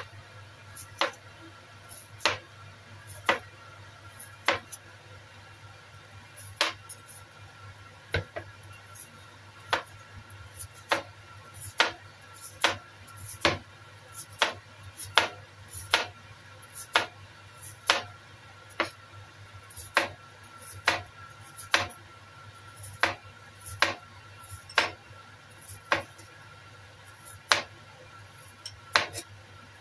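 Kitchen cleaver slicing bitter melon on a wooden cutting board: a sharp knock each time the blade hits the board, about one a second and a little faster in the middle stretch, over a low steady hum.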